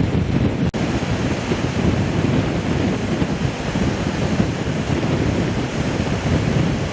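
Floodwater of the Godavari river rushing steadily through the Dowleswaram barrage, a dense low rush, with wind buffeting the microphone. The sound cuts out for an instant a little under a second in.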